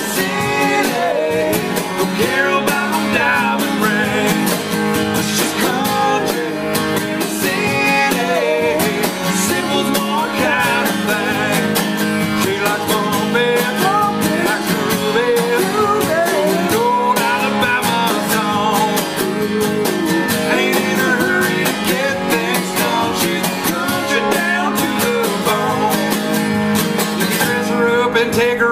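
Country band music with guitars and a steady beat, an instrumental stretch between sung lines.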